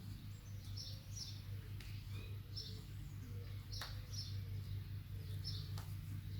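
Faint bird chirping: short, high chirps repeating about once a second over a steady low hum, with two sharp clicks in the second half.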